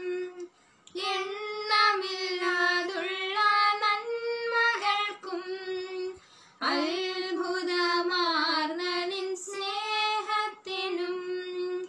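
Two young women singing a Malayalam Christian worship song together, voices only, with no instrument. There are short breaths between phrases, about half a second in and again about six seconds in.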